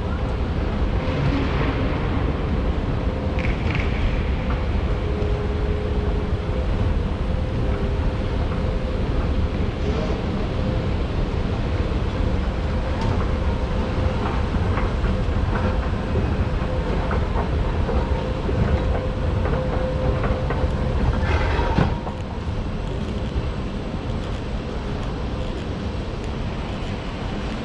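Escalator running: a steady mechanical rumble with a constant hum. About three-quarters of the way through the rumble and hum drop away, leaving the quieter general noise of a railway station hall.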